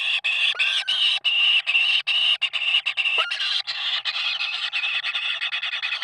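Outdoor nature ambience: a steady, high-pitched chorus of calls with a couple of short whistled notes, one about half a second in and one about three seconds in.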